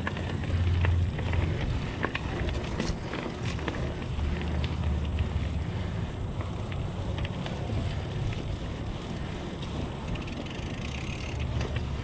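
Diamondback Atroz 3 mountain bike rolling fast down a dirt trail: a steady low rumble from the tyres and wind on the camera's microphone, with scattered clicks and rattles from the bike over the bumps.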